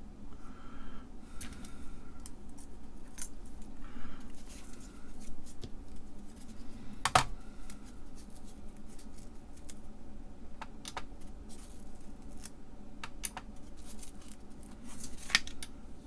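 Scattered small clicks and taps of an IC insertion tool and DIP chips being handled and pressed into sockets on a circuit board, with one sharper click about seven seconds in.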